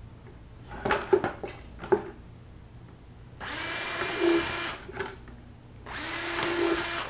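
A cordless drill runs in two bursts of about a second each, boring holes through a plastic 5-gallon bucket. Before it come a few sharp knocks and clicks from the bucket being handled.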